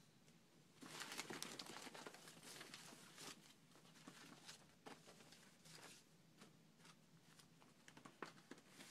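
Faint rustling and crinkling of old paper photographs and magazine clippings being leafed through by hand. A denser flurry comes about a second in, then scattered light crinkles and flicks.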